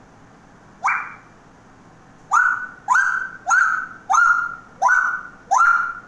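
African grey parrot calling: one call about a second in, then a quick run of six short, evenly spaced calls, each sweeping sharply up in pitch and then holding steady.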